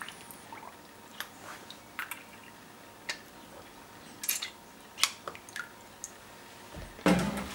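Scattered light clicks and taps from a thin-section saw's sample holder being handled, with a few water drips. In the last half second a much louder sound with a steady low hum starts.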